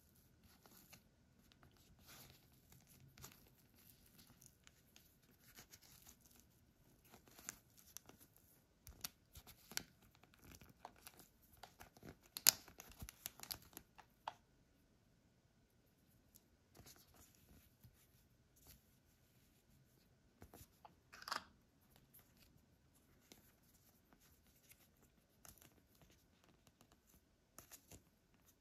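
Faint crackling and tearing of thin clear plastic wrap being pulled off a small plastic unicorn toy's hair, mixed with small clicks and rustles of the toy being handled. The crackling is busiest in the middle, and there is one louder rustle about two-thirds of the way through.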